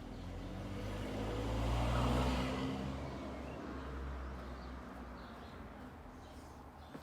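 A motor vehicle driving past: its engine and road noise swell to a peak about two seconds in, then fade away slowly.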